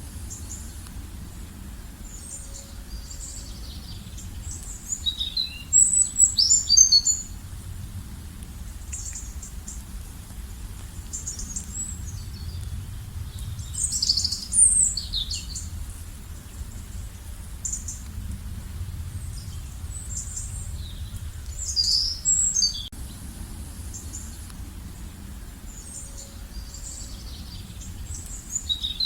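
Birds chirping and singing in short bursts of high notes, loudest about six, fourteen and twenty-two seconds in, over a steady low outdoor rumble.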